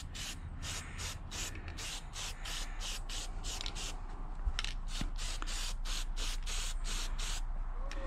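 Aerosol spray-paint can hissing in rapid short pulses, several a second, as safety-red paint goes onto chainsaw parts; it stops just before the end.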